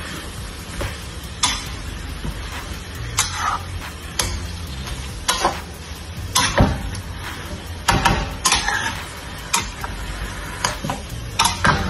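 Stir-fry of beef and vegetables sizzling in a nonstick wok, with a spatula scraping and tossing the food in short strokes about once a second.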